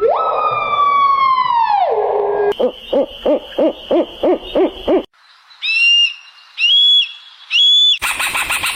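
A string of different animal calls cut abruptly one after another: a long call that falls steeply in pitch, then a run of about nine short evenly spaced calls, then three short high whistled calls, and a burst of rapid chattering calls near the end.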